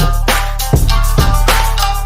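Intro music with a steady drum beat, about two hits a second, over a sustained bass line and held melodic notes.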